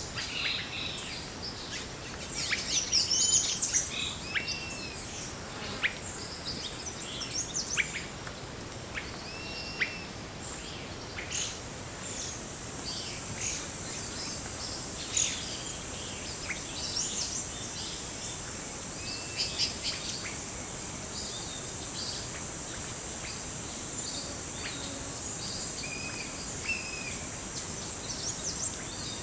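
Forest birds calling: many short chirps and arched whistles from several birds, busiest in the first few seconds, over a steady high-pitched insect drone that grows stronger partway through.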